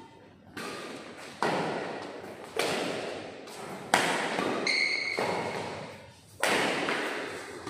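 Badminton rackets striking the shuttlecock in a doubles rally, five sharp hits each ringing on in the echoing hall. A brief squeak, likely a shoe on the court, comes just after the middle.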